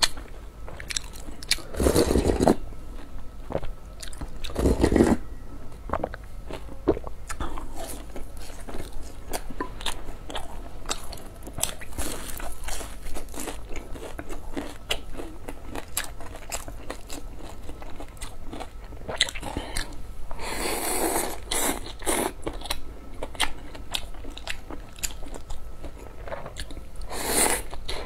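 Crunching bites into crisp fried dough cakes and chewing, with many small crackles throughout and louder crunches about two seconds in, about five seconds in, around twenty-one seconds and near the end.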